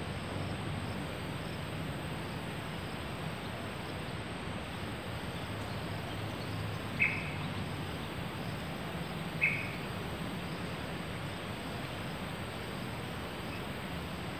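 Mahogany forest ambience: a steady hiss of background insects, with two short high chirps about two and a half seconds apart midway through.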